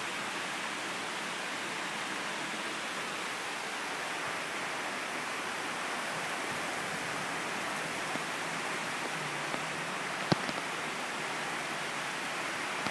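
Heavy tropical downpour: a steady hiss of pouring rain, with a single sharp click about ten seconds in.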